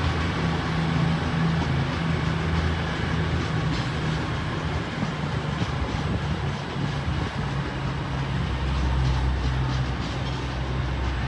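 A pair of East Midlands Railway Class 222 Meridian diesel multiple units moving slowly through the station. Their underfloor Cummins diesel engines give a steady drone, with occasional wheel clicks over the pointwork. The engine note deepens about eight seconds in.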